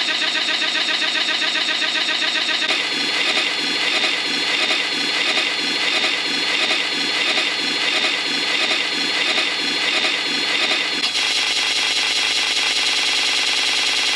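Harsh, dense noise of sound effects looped and stuttered very rapidly, with no pause. It changes character about three seconds in and again about eleven seconds in.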